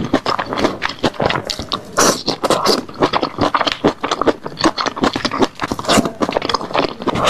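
Close-miked eating: chewing and mouth smacking with crunches, a quick, irregular run of wet clicks.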